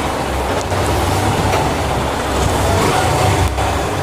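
Yamaha MT15's 155cc single-cylinder engine running, a steady loud low rumble with a wash of noise over it; its engine has been fitted with BS4 parts in place of BS6 ones to sharpen throttle response and sound.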